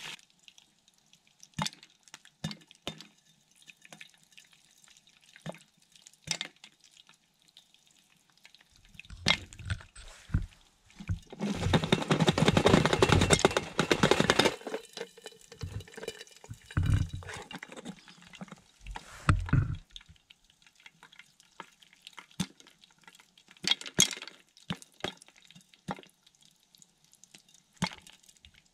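Popcorn kernels starting to pop in a lidded pot of hot oil over a small charcoal stove: scattered single pops. About twelve seconds in, a loud rattling scrape for a couple of seconds, with thumps around it, as the pot is shaken on the stove.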